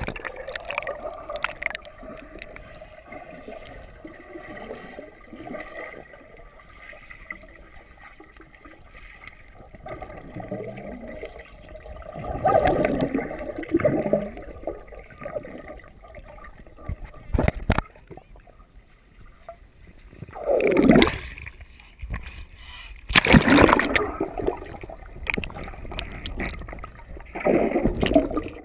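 Water sloshing and splashing, with several louder splashing surges in the second half.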